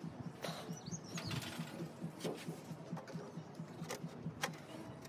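Faint low rustling with a few light, sharp clicks, and a brief high bird chirp about a second in.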